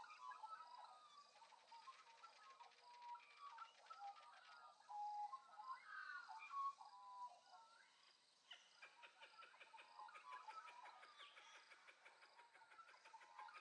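Faint birdsong: many short chirping and warbling notes. About two-thirds of the way through, a fast, even series of ticks joins in.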